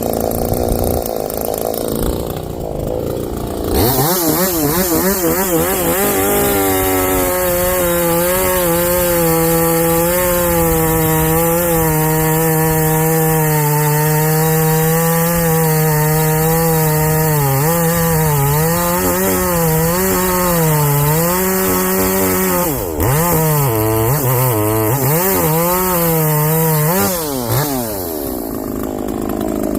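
Muffler-modded Harbor Freight Portland gas chainsaw revving up about four seconds in and running at high revs through a log cut. Its pitch repeatedly dips and recovers under load in the second half, then falls away near the end. The chain is dull and not aggressive, so it makes powdery fine chips rather than real chips.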